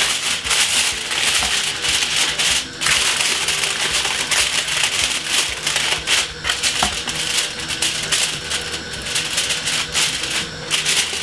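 Aluminium foil crinkling and crackling as it is pressed and crimped by hand over the rim of a baking tray, a continuous dense crackle of many small clicks.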